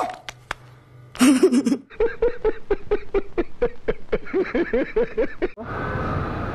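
A man laughing loudly in a quick, even run of ha's for about three and a half seconds, after a short cry about a second in; it cuts off suddenly and gives way to steady street traffic noise.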